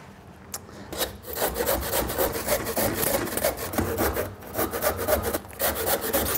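Handsaw cutting through a wooden plank: quick back-and-forth strokes, starting about a second in.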